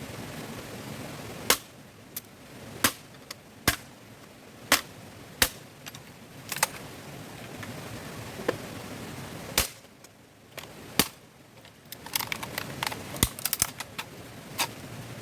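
A series of sharp, irregular cracks and knocks of wood being chopped and broken up by hand, about one a second, with a quick run of smaller crackles near the end.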